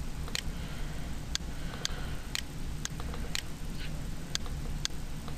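Faint, sharp clicks repeating about twice a second over a low, steady hum.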